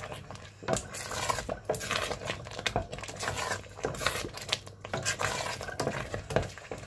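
Wooden spoon stirring thick, sticky xalwo in a metal pot, scraping and knocking against the pot's sides and base in quick, irregular strokes, as freshly added butter is worked into the mixture.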